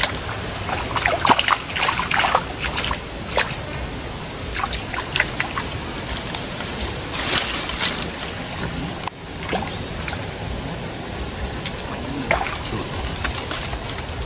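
Water splashing and sloshing in short, irregular bursts over a steady low rumble, with a constant high whine underneath.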